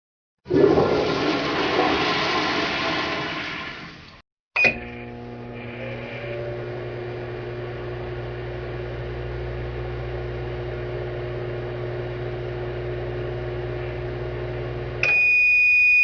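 A rushing noise that fades away over about four seconds. Then a click, a steady machine hum for about ten seconds, and a loud, long, high beep near the end.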